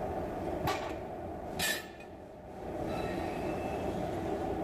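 Steady low hum of heavy factory machinery in a pipe-turning lathe shop. Two short hissing bursts come about a second and a second and a half in, and the hum dips briefly after the second.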